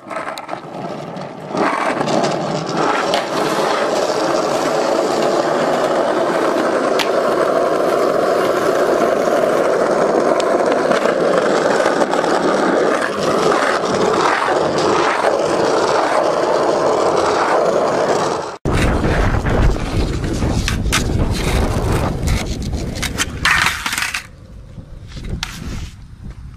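Skateboard wheels rolling over asphalt, a loud steady roar heard up close from a board being ridden. After a sudden cut near the end it gives way to a heavy low rumble broken by sharp clicks and knocks.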